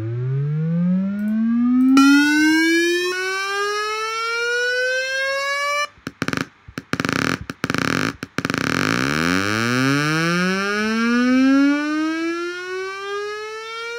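Synthesized tone from a Blender Audio Nodes oscillator, its pitch gliding steadily upward because the Piano node's runtime value, which keeps rising while a MIDI key is held, is multiplied into the frequency. About two seconds in it turns much buzzier, as the wave shape switches from triangle to sawtooth. About six seconds in it chops on and off for two seconds or so, then a new tone starts low and rises again like a siren.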